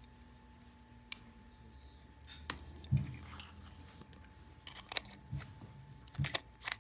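Base metal case of a Hampden size 18 pocket watch being opened and closed by hand. There is one sharp click about a second in, then scattered metal clicks and scrapes as a cover is lifted off and fitted back.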